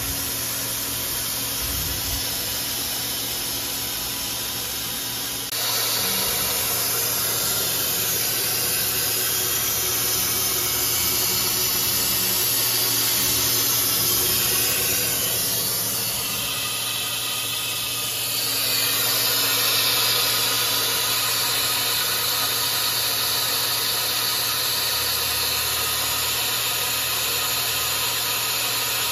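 Steady hum and hiss of running machinery in a machine shop, with a constant low electrical-sounding hum beneath. It steps up in level about five seconds in and grows brighter and hissier about two-thirds of the way through.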